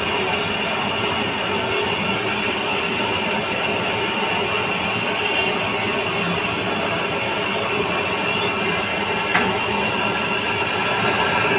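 Steady machine noise with constant tones running through it, and one sharp click about nine seconds in.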